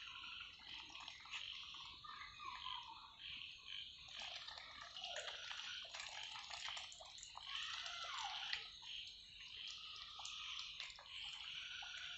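Domestic ducks dabbling in a shallow muddy pool: soft, continual small splashes and wet clicking as they sift the water with their bills.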